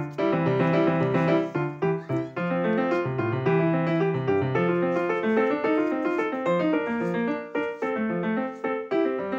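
Background instrumental music: a keyboard instrument playing a quick run of notes over a lower moving line.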